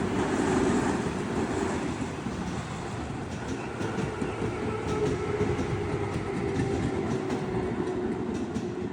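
Electric commuter train running past a level crossing: a steady rumble, with wheel clicks over the rail joints becoming more distinct partway through.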